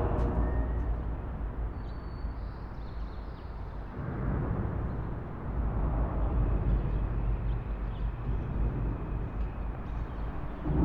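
Field recording of road traffic: a steady, mostly low rumble, with the level shifting abruptly about four seconds in and again about five and a half seconds in.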